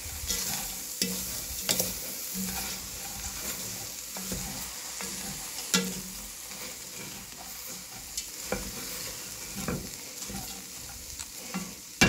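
Wooden spoon stirring diced potatoes, corn, peppers and onion in an enamelled Dutch oven, with irregular scrapes and knocks against the pot over a steady frying sizzle.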